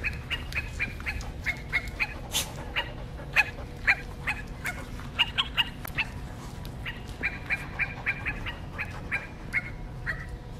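Squeaky plush toy squeezed over and over: runs of short, high squeaks, several a second, broken by brief pauses.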